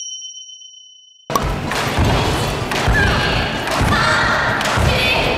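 A bright two-tone chime rings and fades over the first second. Then a group jumping a long rope lands together on a wooden gym floor in a steady rhythm of thumps, roughly two a second, with girls' voices calling out over it.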